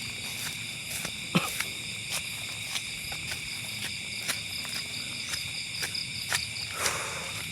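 Steady chorus of night insects trilling, with scattered short clicks and rustles and a sharp snap about a second and a half in.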